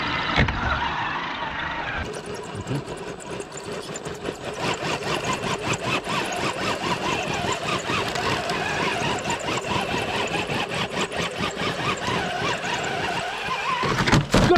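Radio-controlled scale crawler truck's electric motor and gearbox whining as it crawls up a steep rock slab. Rapid clicking and crackling runs under the whine through most of it, with a louder burst of sound near the end.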